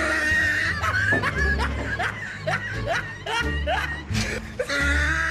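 Background music with a steady low beat, with repeated short bursts of laughter over it.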